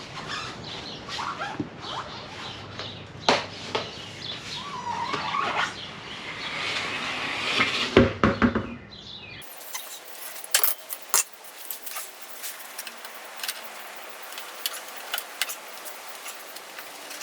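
Scattered metallic clicks and clinks of hand tools and parts being handled on a car body, with birds chirping in the background for the first half. About nine seconds in the ambience changes abruptly, leaving a run of small, sharp clicks and taps.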